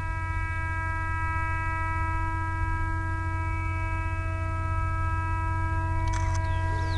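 GT22 diesel-electric locomotive working hard up a grade: a steady low engine rumble that grows a little louder as it approaches, with a steady high-pitched tone held over it.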